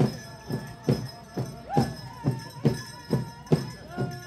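Native American singers and drum performing a round dance song: a steady drumbeat of about two strokes a second, alternating loud and soft, with the singers' voices over it.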